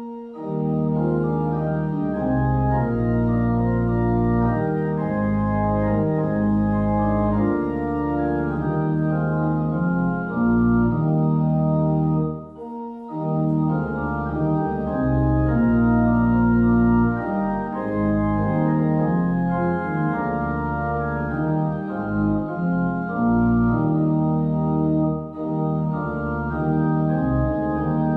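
Organ music: held chords changing slowly, with a short pause a little under halfway through.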